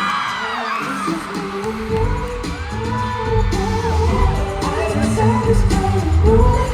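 Live K-pop concert music: a singer's voice over the backing track, with a heavy bass beat coming in about two seconds in.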